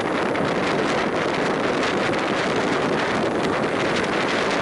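Passenger train running at speed, heard from an open coach window: wind rushing over the microphone on top of the steady rumble of the wheels on the rails.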